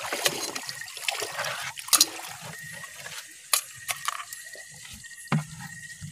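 Wet rustling and scraping as live mud crabs are picked out of damp leaves and dropped into an aluminium pot, with a few sharp clicks and knocks of shell against metal.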